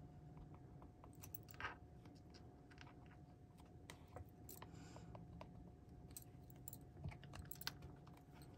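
Faint, scattered light clicks and taps of hands handling a small plastic jar and paper pieces on a craft table, over a faint steady hum.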